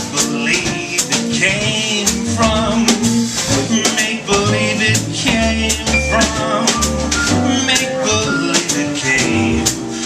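Live jazz combo playing a swing tune: a walking bass line, chords and brushed drums keeping a steady beat.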